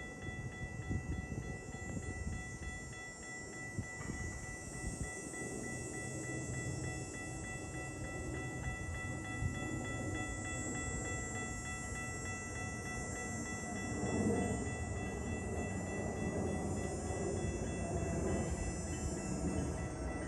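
GO Transit commuter train passing, a low rumble of wheels on rail that swells about two-thirds of the way through, with a hiss over it. Level-crossing bells ring steadily throughout.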